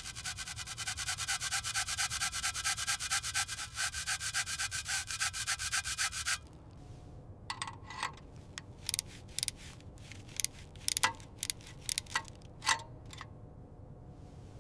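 Rapid back-and-forth abrasive rubbing strokes, like hand sanding, for about six seconds, which stop abruptly. A scattered series of separate sharp taps follows.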